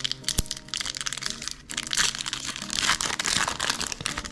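Foil wrapper of an Upper Deck hockey card pack being torn open and crinkled, a dense crackling with a sharp snap just after the start. The crinkling grows louder as the wrapper is peeled back from the cards.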